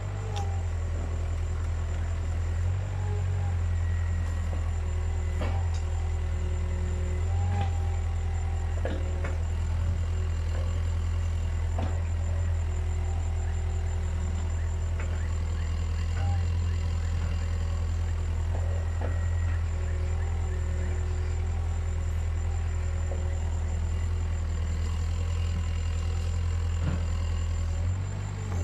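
Caterpillar 305.5E2 mini excavator's diesel engine running steadily while it digs, with occasional short knocks and clunks from the working gear.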